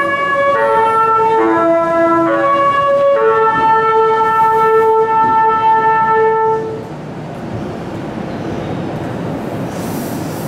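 Meitetsu limited express music horn playing its melody: a tune of short notes, each under a second, ending in one long held note that stops about seven seconds in. The steady running noise of the train follows.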